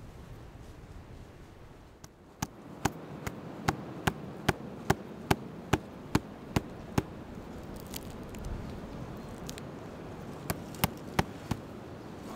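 Knife blade chopping into a chaga conk on a birch trunk: a run of about a dozen sharp strikes, a little over two a second, then a pause and four quicker strikes near the end.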